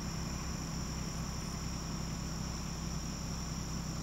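A steady, high-pitched chorus of insects in the field, with a low steady hum underneath.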